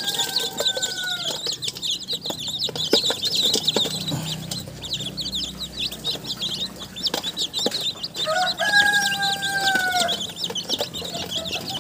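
A bowlful of newly hatched Rhode Island Red, Black Australorp and Barred Plymouth Rock chicks peeping continuously, many rapid high peeps at once. A rooster crows twice, once at the start and again about eight and a half seconds in.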